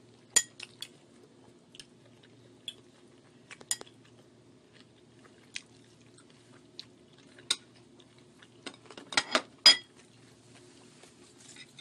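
Metal fork clicking and scraping on a plate in scattered sharp clicks, with the loudest cluster near the end, and chewing of crispy fried rice and shrimp in between.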